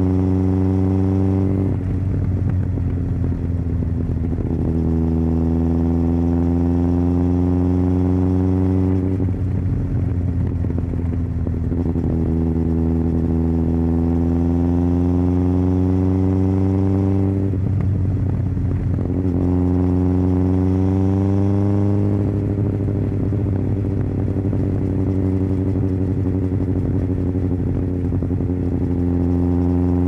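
2001 Yamaha FZS1000 Fazer's inline-four engine under way. Its pitch climbs slowly in several pulls, each broken by a couple of seconds of rougher, less even sound, and it holds steady over the last several seconds.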